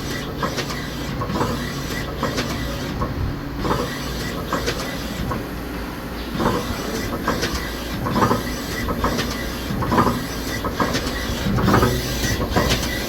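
Star SR-32J CNC Swiss lathe moving its X2 axis back and forth: a steady machine hum with repeated irregular clicks and clunks. The clicking comes from the way cover and from behind the spindle, and is normal for this machine.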